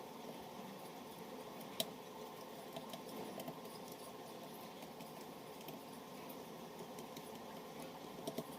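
Scattered small clicks and taps, a sharp one about two seconds in and a few close together near the end, over a steady low noise.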